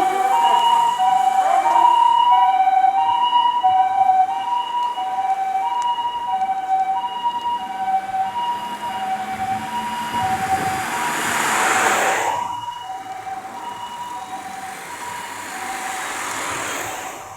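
Japanese ambulance's TCD e-deck electronic siren sounding the two-note hi-lo 'pee-po' wail, alternating steadily between a higher and a lower note and growing fainter in the second half as the ambulance pulls away. A broad rushing noise swells up twice, about two-thirds of the way through and near the end.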